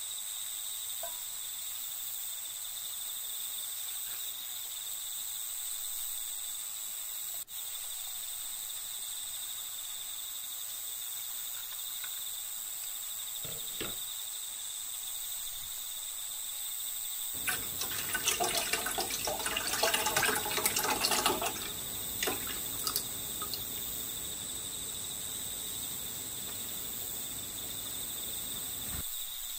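Ready-made tom yum soup poured from a pouch into a camping cooker pot: a splashing pour of about four to five seconds starting a little past halfway. A steady high cricket chirring runs underneath.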